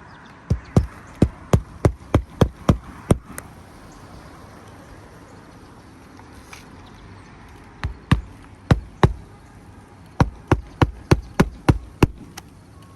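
A hammer driving roofing nails through an asphalt shingle: three runs of quick, sharp strikes, about three a second, with pauses between the runs.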